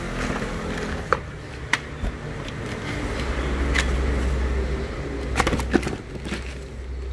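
Plastic-bagged spare parts crinkling and clicking as a hand rummages through them in a cardboard box, with a few sharp clicks. A low steady rumble grows in the background from about three seconds in.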